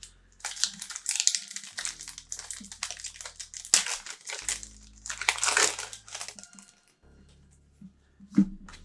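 Trading-card pack wrapper crinkling as it is handled and opened, in irregular bursts for about six seconds, then quieter, with a short thump near the end.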